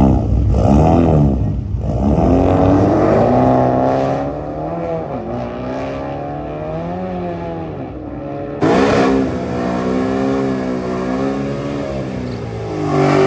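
Loud high-performance car engines revving and accelerating, the pitch climbing and dropping several times. About two-thirds of the way through, the sound cuts abruptly to another loud engine running hard.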